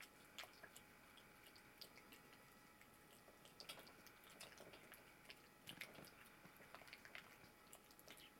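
Faint, irregular wet clicks and smacks of a cat chewing and licking chunks of wet food from a china bowl.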